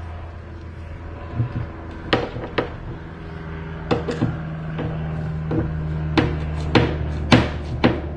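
Hand tools and small metal hardware knocking and clicking against the wooden kayak as fittings are handled and fastened: scattered sharp knocks, coming more often in the second half, over a steady low hum.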